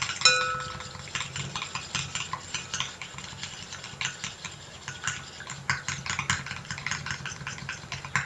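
Small metal spoon stirring quickly in a stainless steel bowl, a stream of rapid clicks and scrapes against the metal, with a brief metallic ring near the start. The water phase is being stirred into the melted oil and emulsifying wax to form a cream emulsion.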